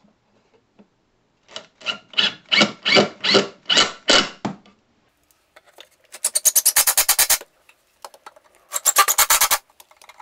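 Makita 10.8 V cordless driver driving screws through a pine shelf into its wooden brackets, in several bursts: a stuttering run of pulses first, then three short, rapid buzzing bursts as screws are driven home.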